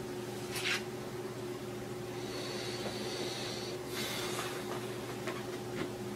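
Quiet room with a steady low hum, broken by a few soft short rustles as sheets of printed script paper are handled: one brief rustle about a second in and a longer, softer one in the middle.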